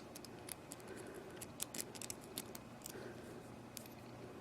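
Faint, irregular small metallic clicks and scrapes of an Allen wrench working the screw that holds the removable core in a Sargent padlock.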